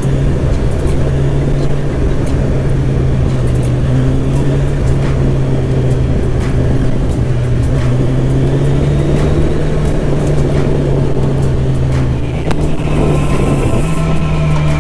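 Kawasaki Ninja 1000's inline-four engine cruising at steady revs, heard from inside the rider's helmet under road and wind noise. Near the end the engine note sits a little higher and climbs.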